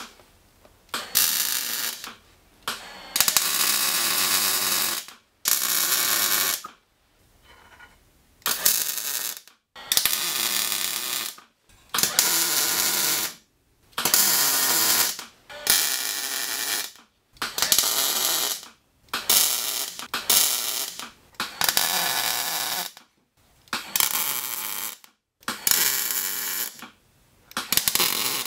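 Wire-feed welder welding steel-tube chassis cross members in short runs: a crackling hiss of about one to two seconds, stopping and starting some fifteen times.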